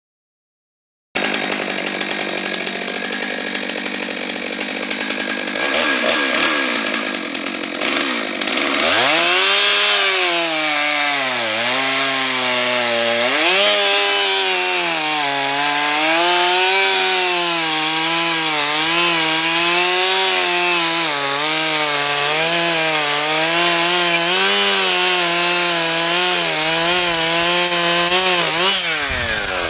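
Stihl MS 661 C-M chainsaw, a 91 cc two-stroke, running at full throttle while cutting through a log. Its engine pitch sags and recovers again and again as the bar bears into the wood. Near the end the pitch drops sharply, then climbs again.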